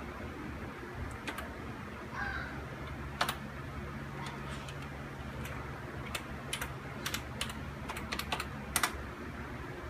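Computer keyboard being typed on: scattered key clicks as a login password is entered, over a steady low hum.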